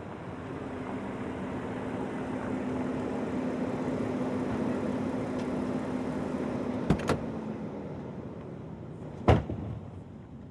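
A car running steadily, its hum swelling and then fading out. A pair of sharp clicks follows about seven seconds in, and near the end a single louder thump, like a car door shutting.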